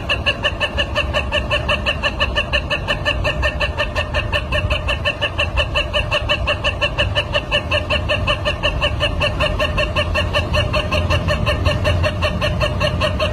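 Rooster crowing in one very long, unbroken call held at a steady pitch, pulsing evenly about seven times a second.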